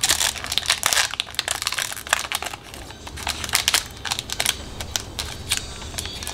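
Foil wrapper of a Pokémon trading-card booster pack crinkling and crackling as hands tear it open and pull it apart, a dense, irregular run of sharp crackles.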